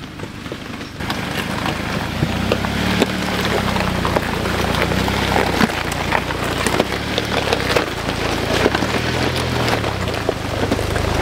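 Jeep Wrangler crawling slowly over a rocky trail, its tires crunching and cracking over stones, sticks and dry leaves above a low engine hum that rises and falls with the throttle. It grows louder as the Jeep closes in on the microphone.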